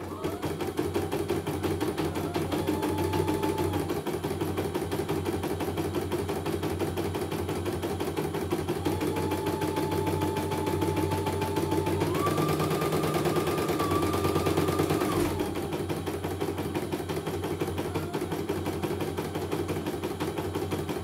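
CNY computerized embroidery machine stitching a design at speed: a fast, steady needle rattle. A thin whine comes and goes over it, stepping up in pitch about twelve seconds in and stopping about fifteen seconds in.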